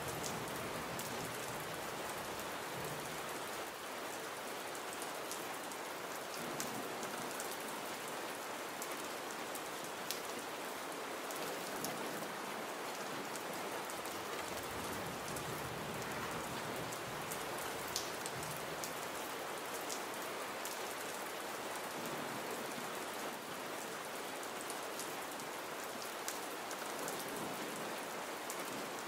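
Gentle, steady rain falling, an even hiss with occasional sharper single drop ticks.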